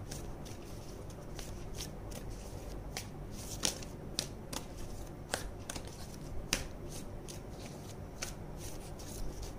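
A deck of oracle cards being shuffled by hand: irregular crisp flicks and taps as the cards slide over one another, over a faint low hum.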